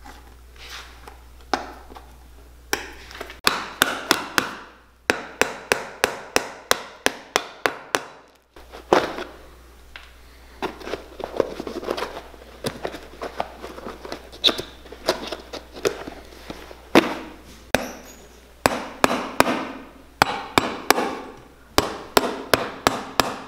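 Runs of sharp clicks and taps from hand tools picking and cutting old stitches out of a worn cowboy boot's leather sole, with softer scraping between. At times the strokes come quickly, about three a second.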